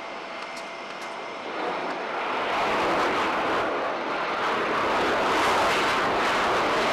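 Twin-engine MiG-35 fighter jet flying past, its engine noise swelling about two seconds in and staying loud.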